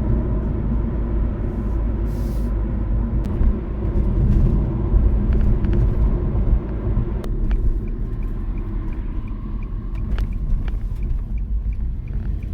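Car on the road, giving a steady low rumble of engine and road noise. About three-quarters of the way in, a light regular ticking starts, about three ticks a second.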